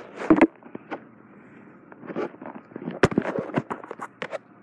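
Sharp clicks and knocks from handling the phone and the window blinds: a loud pair near the start and a quick run of them in the second half. Under them is a steady hiss of heavy rain.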